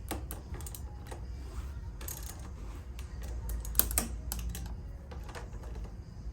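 Scattered light metallic clicks and clinks of a wrench being worked on handlebar riser bolts that are already tight, with one louder clack a little before four seconds.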